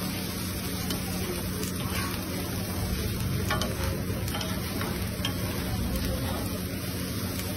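Eggs and dosa batter sizzling on a flat iron griddle while a metal spatula scrapes and chops an omelette on it, with a few light clinks of the spatula against the iron, over a steady low hum.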